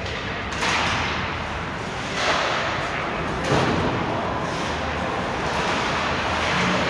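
Ice hockey play on a rink: skates scraping across the ice in repeated hissing bursts, with sharp knocks about two and three and a half seconds in, over steady rink noise.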